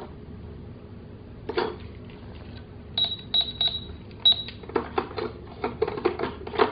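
Toy cash register's handheld scanner giving four short, high-pitched electronic beeps, among plastic clicks and knocks from handling the scanner and register.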